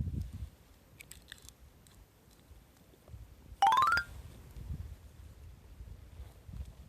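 A short electronic chirp about halfway through, rising in quick steps for about half a second, over low rumbling noise.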